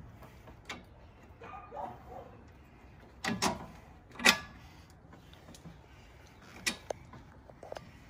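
A few scattered sharp clicks and knocks of tools and parts being handled, the loudest about four seconds in.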